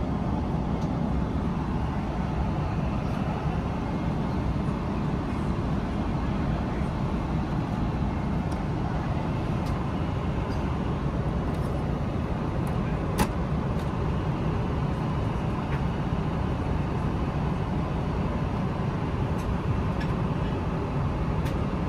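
Steady, deep cabin noise inside a Boeing 777-300ER airliner, with a single sharp click about 13 seconds in.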